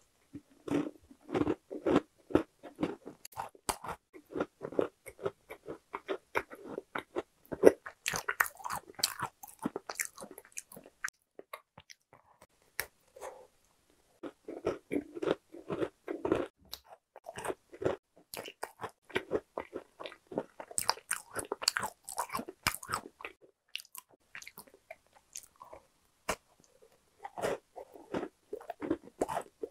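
A person biting and chewing a baked pastry: wet mouth sounds with many sharp crackly clicks, in bursts broken by a couple of pauses of a few seconds.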